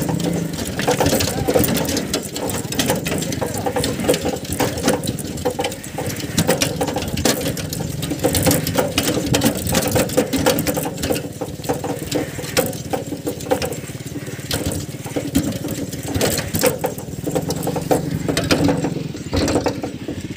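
Bullock cart rattling and clattering as a pair of yoked bullocks pull it along a road, with dense, continuous clicking and knocking from the cart.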